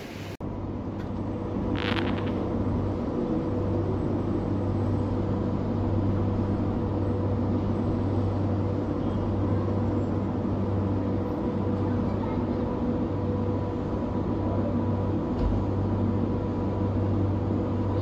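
Steady hum of aquarium filter and pump motors with the hiss of bubbling water in the tanks, and a short noise about two seconds in.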